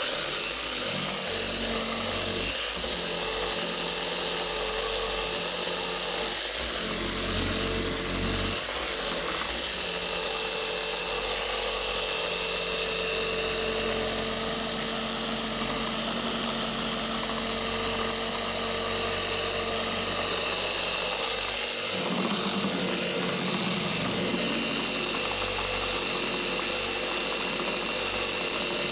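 Electric polisher running continuously with a pad and paste on a car's clear coat. Its motor tone shifts a few times as it works the panel.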